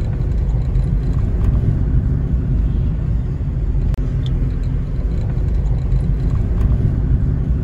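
Car driving on a hill highway: a steady low rumble of engine and road noise, broken by a brief click and momentary dropout about halfway through.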